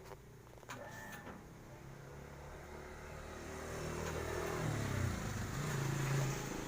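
A motor vehicle passing by: its engine hum and road noise build over a few seconds and are loudest about five to six seconds in, with the engine note dipping as it goes past.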